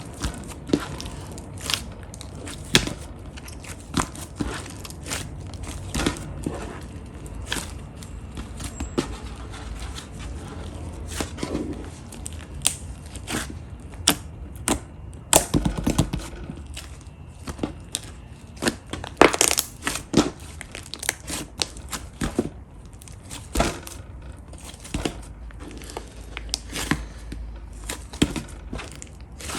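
Pastel pink slime being squished, pressed and stretched by hand, giving irregular sharp pops and crackles, with a busier, louder stretch of popping past the middle.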